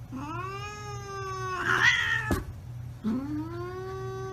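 A cat yowling in two long, drawn-out calls, each rising in pitch and then holding; the first turns harsh near its end and is followed by a short sharp knock.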